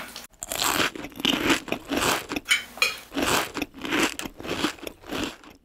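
Crunchy chewing: a mouthful of breakfast cereal being munched, one crunch after another, about two a second.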